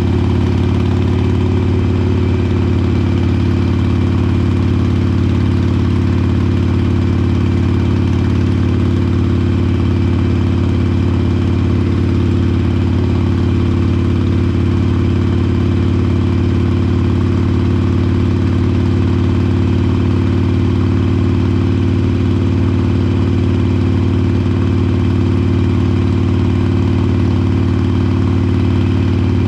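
Harley-Davidson Iron 883 Sportster's air-cooled V-twin idling steadily through Vance & Hines Short Shots slip-on exhaust, a constant low pulsing note with no revs.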